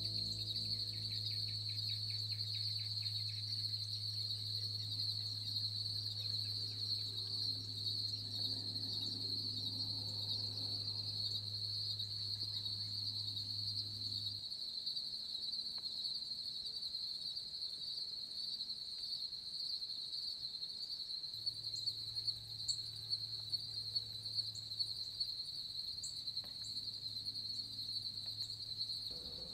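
Steady chorus of insects, a continuous high-pitched trill. A low steady hum underneath drops out about halfway and comes back a few seconds later, and a few faint ticks sound near the end.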